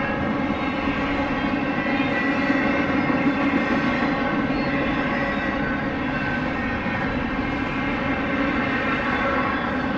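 Diesel locomotive engines of a freight train droning steadily as the train passes, an even, humming engine note over a rumble.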